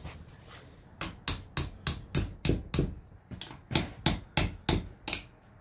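Small hammer tapping repeatedly on a riding-mower transaxle, about a dozen quick metallic strikes at roughly three a second starting about a second in, some with a short ring.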